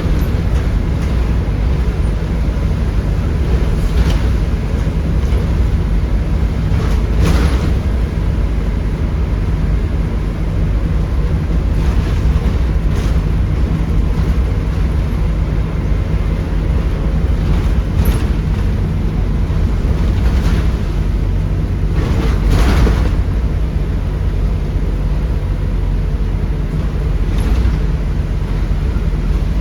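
Volvo B7RLE bus's 7.3-litre Volvo D7C diesel engine running steadily as the bus travels, a loud low drone, with a few brief rattles or knocks scattered through it.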